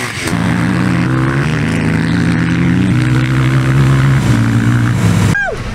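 Motor vehicle engine running at fairly steady revs, its pitch stepping up and down a few times before cutting off suddenly near the end.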